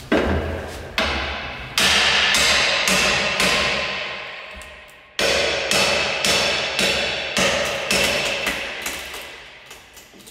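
A hammer striking a steel Halligan tool to drive it into the gap between door and frame. The blows come about two a second, each with a metallic ring: six blows, a short pause, then another run of about nine.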